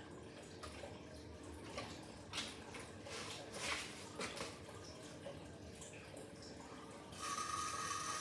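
Water splashing and dripping in irregular bursts, then a steady stream of running water starting near the end.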